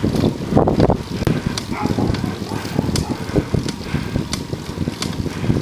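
Wind buffeting the microphone and road rumble from a bicycle riding on pavement, with sharp clicks or rattles every second or so.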